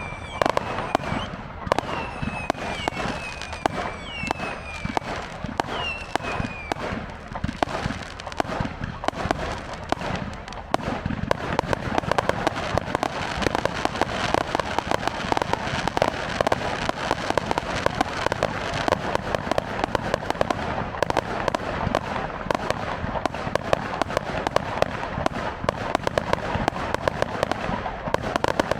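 Fireworks going off in a dense run of bangs and crackles. In the first few seconds several whistles fall in pitch, and from about ten seconds in a thick, rapid crackling barrage builds and keeps going.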